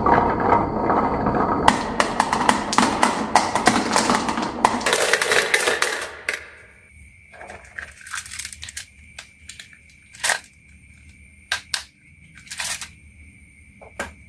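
Marbles rolling and clattering down a HABA marble run track: a dense, rapid rattle of clicks for about the first six seconds, then thinning to scattered single clicks and clacks.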